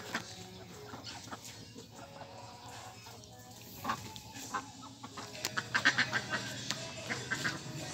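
Domestic chickens clucking, with a quick run of louder calls about five and a half seconds in.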